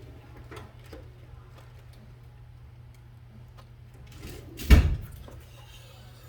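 A single loud thump about three-quarters of the way through, with a few faint clicks of handling over a low steady hum.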